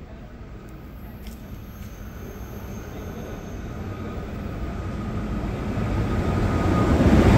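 ÖBB Railjet push-pull train, cab car leading and class 1116 Taurus locomotive at the rear, approaching along the platform. Its rumble grows steadily louder as it nears, with a faint steady high whine.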